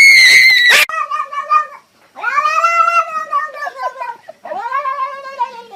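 A cat yowling: a very loud, shrill cry that ends about a second in, followed by three drawn-out meowing calls, the middle one longest, rising and then falling in pitch.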